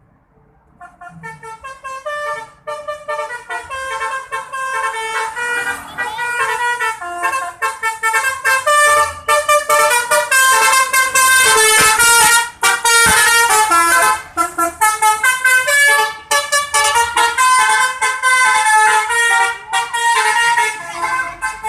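Telolet basuri musical horn on a Galih Trans bus playing a quick melody of stepped, many-toned horn notes. It starts about a second in and grows louder over the first several seconds.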